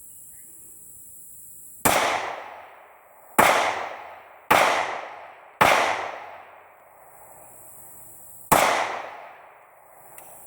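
Five gunshots at uneven spacing, the last after a longer pause, each followed by an echo that fades over about a second.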